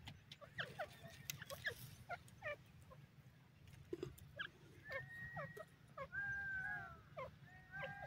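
Grey francolin giving soft calls: a string of short, quick chirps that fall in pitch, then from about five seconds in several drawn-out whistled notes, the longest about a second, dipping at its end.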